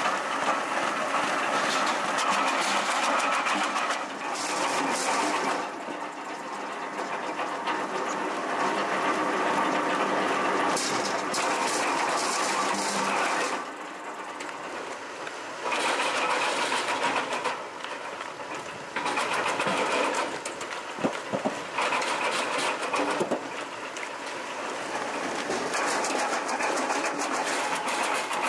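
Tractor-driven wood-processing machinery and a slatted conveyor carrying split wood, running with a steady mechanical clatter that changes in character every few seconds. There are a few sharp knocks past the middle.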